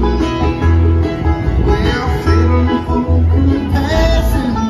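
Live bluegrass band playing over an outdoor concert PA, heard from the crowd through a phone microphone. The bass is heavy and booming under the picked strings.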